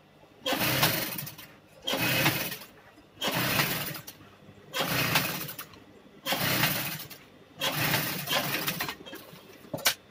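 Industrial sewing machine stitching upholstery in about seven short runs of roughly a second each, stopping briefly between them.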